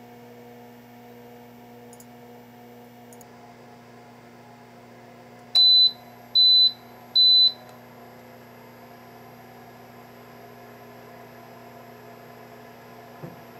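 Countertop air fryer oven beeping three times, short high beeps under a second apart: it has reached its 425°F preheat temperature and the 10-minute cook timer is starting. A steady hum runs underneath.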